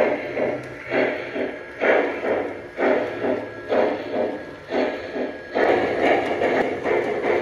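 Lionel LionMaster Challenger model steam locomotive's sound system playing steam chuffs as it runs, about one chuff a second, coming quicker and closer together about halfway through, over a low hum.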